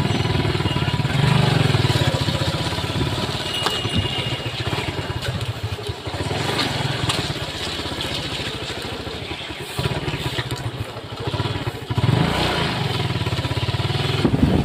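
Small motorcycle engine running at low road speed, its note rising and easing off several times as the throttle is opened and closed on a slow ride.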